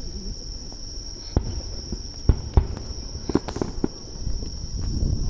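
Distant fireworks bursting with several low booms over a few seconds, over a steady high chirring of insects.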